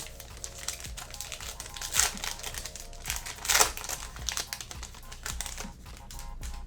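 Crinkling of a trading-card pack's wrapper being handled and torn open, with the loudest crackles about two and three and a half seconds in.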